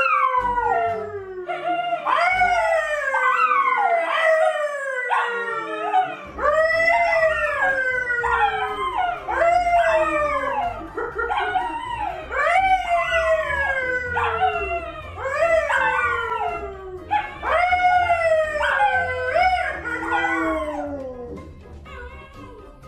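A poodle and a Labrador howling along with a man who howls with them: a run of long, overlapping howls, each falling in pitch. The howling dies away near the end.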